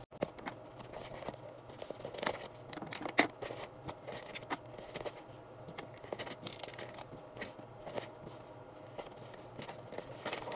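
Plastic and silicone fidget toys handled and dropped into a fabric zip bag: rustling with scattered light clicks and knocks, the sharpest about three seconds in.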